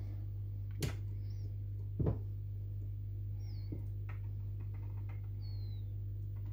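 Small tools and parts being handled at a workbench while a step-down converter's trim screw is adjusted: two knocks, about one and two seconds in, the second the loudest, then a few lighter ticks, over a steady low hum. Three short, faint high chirps that fall in pitch are heard between the knocks.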